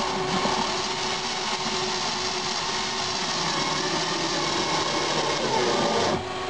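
Cordless drill driving a screw into the thermostat's mounting bracket, running steadily for about six seconds and stopping shortly before the end.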